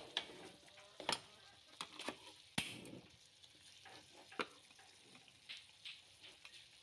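Catfish pieces frying in a pan with a faint sizzle and crackle, as a metal spatula stirs them, clicking sharply against the pan a few times.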